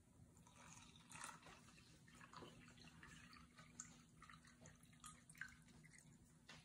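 Crystal-growing solution poured from a mixing bowl into a small cup: a faint trickle with a few small drips.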